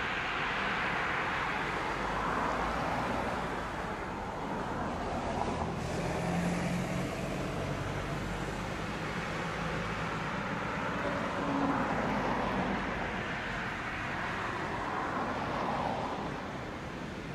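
ED9M commuter electric multiple-unit train running along the track: a steady rumble and hiss of wheels on rail with a low electric hum.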